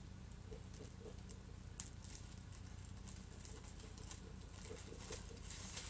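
Faint, scattered small clicks and light rustling of fingers picking at the paper wrapping of a candle, with one sharper click about two seconds in. A low steady hum sits underneath.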